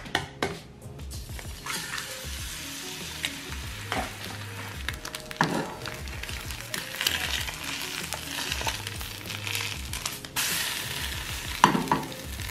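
An egg frying in a ceramic nonstick skillet, sizzling steadily from about two seconds in, after a few sharp clicks near the start.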